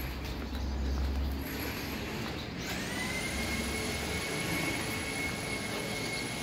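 A steady high-pitched machine whine starts about two and a half seconds in, rising quickly to one steady pitch and holding there, over a low rumbling outdoor background.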